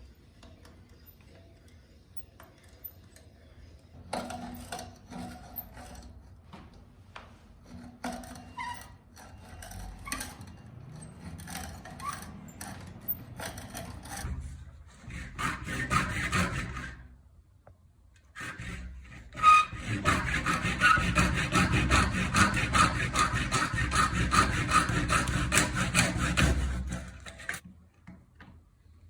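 Hand saw cutting wood. Scattered light scrapes and knocks lead into a short burst of sawing, then a steady run of quick, even saw strokes for about eight seconds in the second half.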